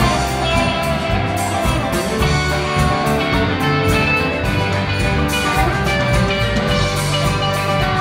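Live rock band playing an instrumental passage: electric guitar, keyboard and drum kit keeping a steady beat, with no singing.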